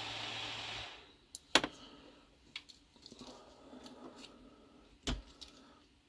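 An old desktop PC's fans and power supply running steadily with a low hum, then cutting off about a second in as the machine is switched off. After that come a few sharp clicks and knocks of handling, two of them louder.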